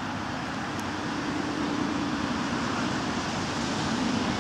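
Steady rushing outdoor background noise with a faint low hum underneath.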